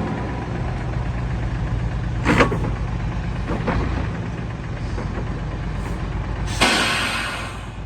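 Dump truck's diesel engine running steadily at low revs, with a short sharp hiss of released air about two seconds in and a longer, louder air hiss near the end, like air brakes being let off.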